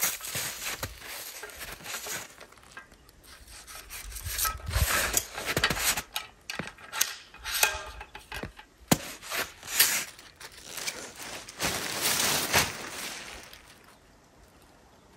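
Compact snow shovel scraping and chopping into packed snow, mixed with the crunch of snowshoe steps: a run of irregular scraping strokes that dies down near the end.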